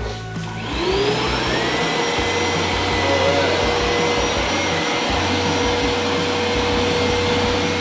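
Hoover SmartWash Pet Complete carpet washer switched on: its motor spins up with a rising whine about half a second in, then runs steadily as the machine is pushed over the carpet.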